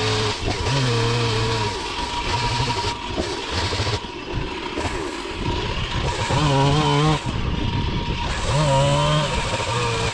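Chainsaw cutting through a honeylocust trunk, its engine speed rising and falling repeatedly as the chain bites into the wood, and climbing highest twice in the second half.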